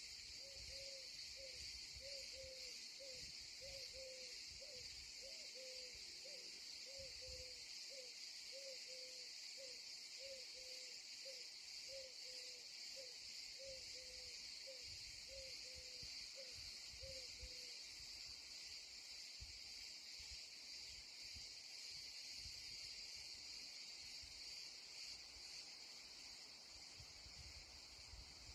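A faint, steady insect chorus of high chirring. Over it, a run of short, slightly falling hoot-like calls repeats about one and a half times a second for the first two-thirds, then stops.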